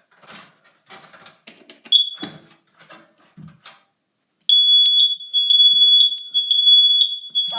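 Kidde 30CUAR-V combination smoke and carbon monoxide alarm in a push-button test. A brief chirp comes about two seconds in. From about four and a half seconds in, its loud, high-pitched smoke alarm horn sounds in quick pulses.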